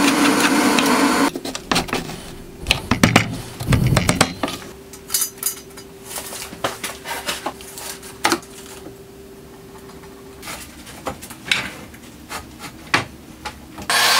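Clicks, knocks and scraping of steel tubing being positioned and clamped in a metal-cutting miter saw's vise. The first second or so is filled with a louder, denser noise, and a faint steady hum runs through the middle.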